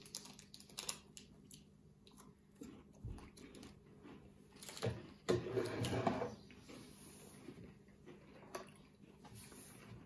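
Faint crinkling of a Kit Kat wrapper being handled, with scattered small clicks and a short louder stretch about five seconds in.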